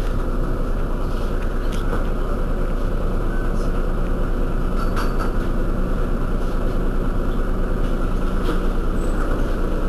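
Heuliez GX 127 city bus's diesel engine idling steadily, with a low even rumble and a few faint light clicks.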